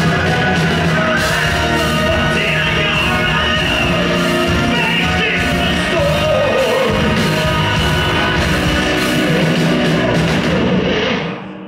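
Symphonic metal band playing live, male and female vocalists singing together over drums and electric guitars; the music stops shortly before the end.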